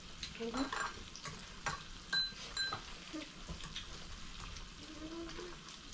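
Pieces of meat sizzling in a tabletop electric grill pot, a steady frying hiss with occasional clicks of chopsticks and tableware.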